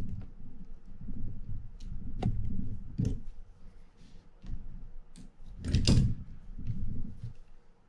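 Hands handling a Shimano TLD 50 fishing reel on a bench: low rubbing and shuffling with a few sharp metal clicks and knocks from the reel's handle and parts. The loudest cluster of clicks comes about six seconds in.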